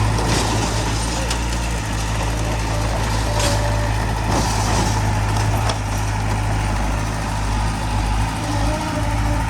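Heavy diesel machinery engine running steadily with a strong low drone, with a few short hisses on top.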